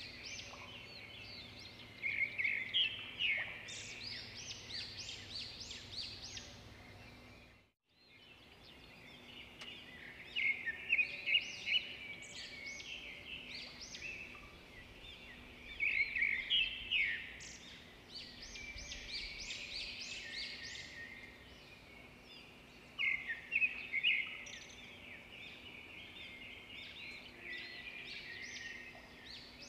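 A spoon beating whipped coffee mixture in a mug, rapid scraping and clicking strokes against the mug's sides. The strokes come in quick flurries a few seconds apart, with a short break about eight seconds in.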